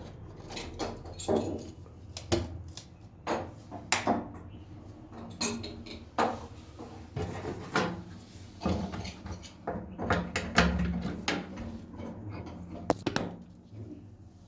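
Irregular clicks and knocks of tools and electrical fittings being handled, a dozen or more separate sharp strikes with no steady machine sound.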